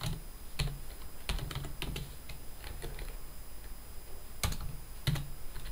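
Computer keyboard being typed on: irregular key clicks in short runs, a pause of about two seconds in the middle, then a couple of louder keystrokes near the end.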